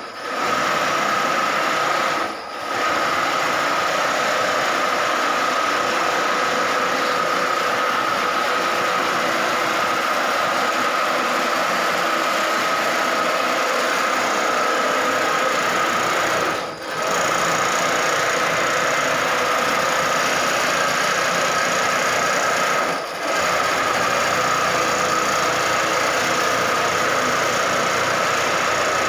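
Computerised single-needle quilting machine running, its needle head stitching a quilt: a steady mechanical racket with a constant high whine, dipping briefly three times, about two and a half seconds in, around seventeen seconds and around twenty-three seconds.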